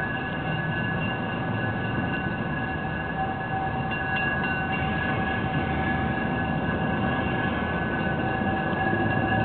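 Budd RDC diesel railcar approaching slowly, its engine running with a steady high whine over the rumble, growing slightly louder as it comes closer.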